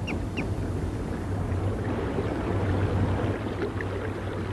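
Steady low outdoor rumble, like wind or distant water, with a bird's short high chirps repeating about three a second at the very start and a few faint chirps later.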